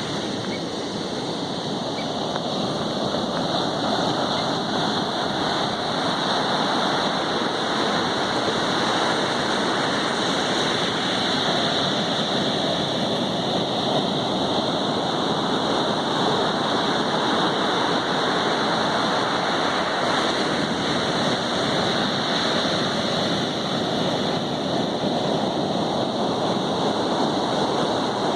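Sea waves washing onto a beach: a steady rushing of water.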